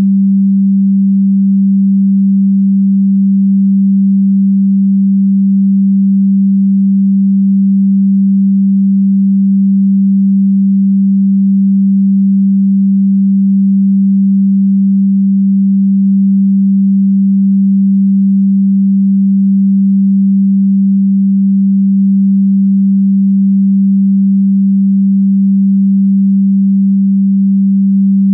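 A single electronically generated sine tone, held loud and perfectly steady at a low pitch just under 200 Hz, with no change in pitch or volume.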